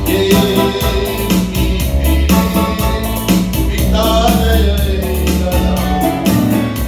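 Sinhala song: a woman singing over instrumental accompaniment with a steady beat.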